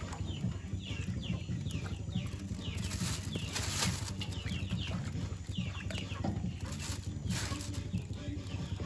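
Birds chirping in repeated short falling calls, over a steady low hum. A plastic bag holding a fish crinkles briefly a few times.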